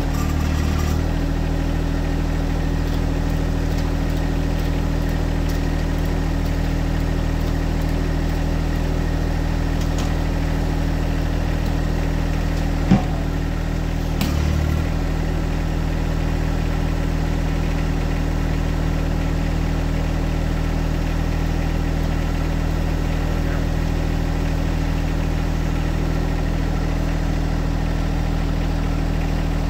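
John Deere 1025R compact tractor's three-cylinder diesel engine running steadily at idle. It briefly works harder twice, about a second in and again about halfway, as the front loader takes the weight of a log. A single sharp knock comes just before the second swell.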